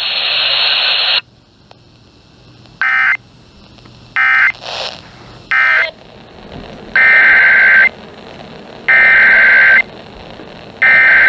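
Emergency Alert System SAME data bursts. Three short end-of-message bursts come about a second and a half apart, then three longer header bursts of the next alert, each just under a second and about two seconds apart. It opens with about a second of loud hiss.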